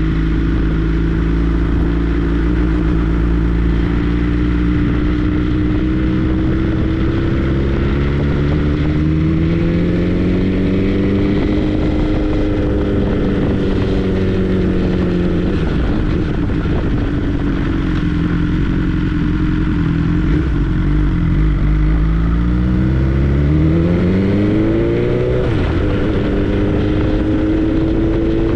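BMW S 1000 R's inline-four engine running under way. Its pitch climbs twice as the bike accelerates, each climb ending in a sudden drop like an upshift, and then it holds a steady pitch near the end.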